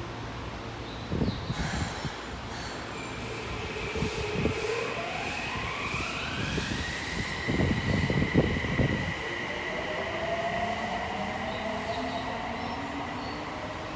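Subway train's electric motors whining, the pitch rising steadily for a few seconds and then holding high as the train accelerates away. There are low rumbles and thumps in the first half.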